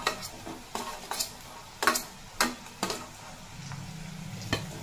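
Metal spatula clinking and scraping against a steel bowl and a steel kadai as pre-fried cauliflower and flat beans are tipped into the pan: about seven sharp clinks, spaced irregularly.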